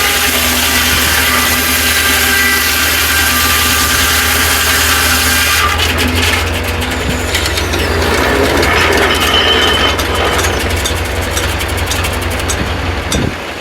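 Corley 395 circular sawmill blade cutting through a log over a steady engine drone; about six seconds in the cutting noise stops abruptly as the blade leaves the cut, leaving the engine running with many sharp clicks and rattles, and the low drone drops off near the end.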